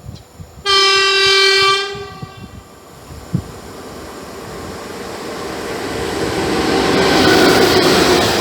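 ET22 electric freight locomotive sounding its horn in one steady blast of just over a second. Then the rumble of the approaching train grows steadily louder as the locomotive and its empty open coal wagons draw near, with one short knock partway through.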